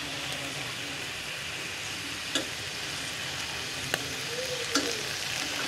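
Goat satay skewers sizzling steadily on a stovetop grill plate over a gas burner, with three short sharp pops partway through.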